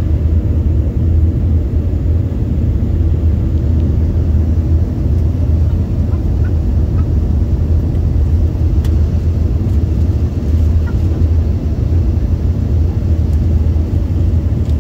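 Steady low rumble of engine and airflow noise inside the cabin of an Embraer 145 regional jet during its descent.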